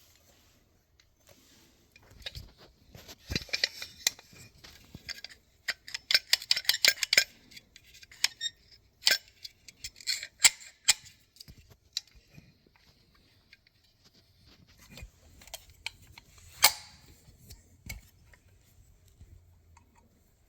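Rochester Quadrajet carburetor being handled: a run of sharp metallic clicks and rattles of its parts. The clicks come in clusters from about two to eleven seconds in, with one louder click later and quieter handling noise between.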